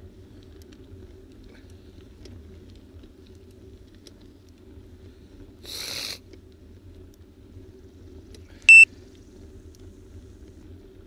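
A steady low rumble of travel along a paved road, with a short hiss about halfway through. Near the end comes one short, loud, high electronic beep.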